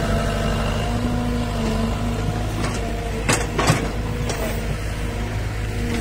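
Hydraulic excavator's diesel engine running steadily, with two sharp knocks close together a little past halfway.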